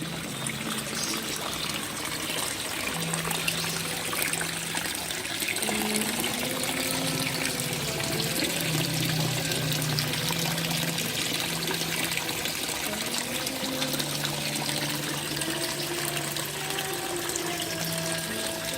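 Water trickling and splashing steadily, with a dense patter of fine drips and splashes.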